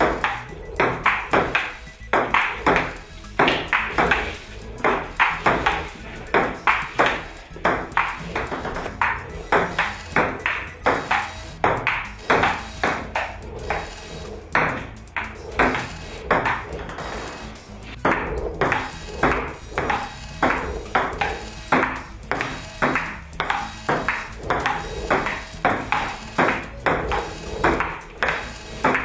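Table tennis ball clicking against bats and the table in a steady back-and-forth rally, about two sharp clicks a second, over background music.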